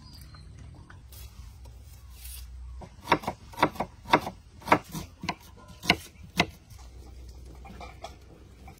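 Kitchen knife slicing shallots on a wooden chopping board: about ten sharp cuts in quick, uneven succession, starting about three seconds in, over a low steady background rumble.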